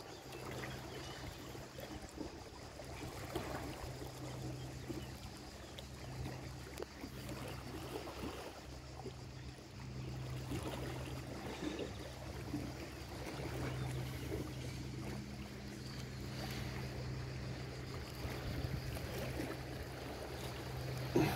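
Water splashing and lapping over a steady low motor hum that drops out and comes back every few seconds.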